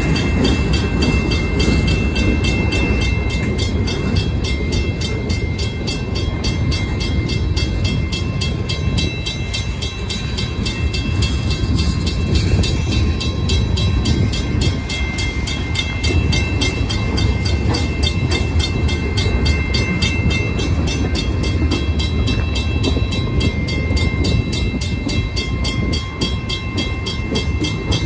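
Freight train's cars rolling past close by: a continuous rumble of steel wheels on the rails, with a few faint steady high-pitched tones over it.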